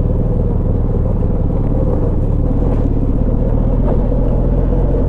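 Benelli TRK 502's parallel-twin engine running steadily at low speed in first gear as the motorcycle rides over a rough dirt track.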